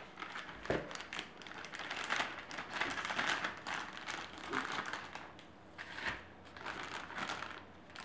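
Thin plastic bag and disposable plastic gloves crinkling and rustling as ground meat is squeezed out of the bag by hand. There are a couple of soft thuds, about a second in and about six seconds in.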